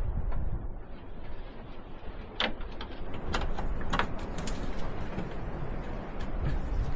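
Scattered clicks and knocks of hand tools on metal over a low rumble, as bolts are worked on the Land Rover's front end.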